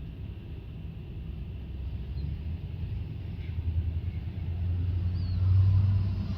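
Low rumble of a motor vehicle, growing louder toward the end, with a few faint high chirps.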